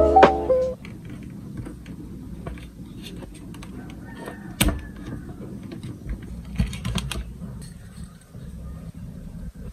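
Monitor power and video cables being handled and pressed into the stand's rear cable channel: a low rustle of handling with scattered small clicks and taps, and one sharp click a little past halfway.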